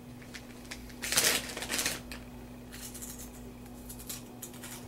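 Crinkling and rustling of a plastic snack-chip bag, loudest about a second in, then a run of small crackles and crunches as chips are taken and eaten. A steady low electrical hum sits underneath.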